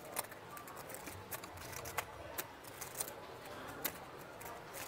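Poker chips clicking as they are handled at the table: light, irregular clicks, several a second.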